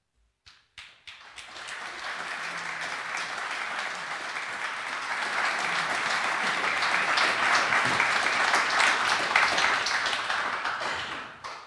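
Audience applauding an honours recipient: a few scattered claps at first, building into dense, full applause that fades out near the end.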